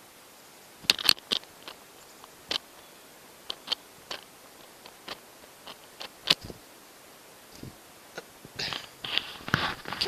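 Irregular sharp clicks and crunches of bird seed being handled or pecked at in an outstretched hand close to the microphone, scattered through the first seven seconds, then a denser rustling near the end.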